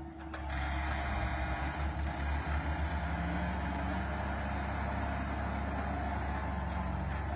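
Heavy vehicle's engine running steadily with a low rumble, which pulses unevenly for a couple of seconds about a second in.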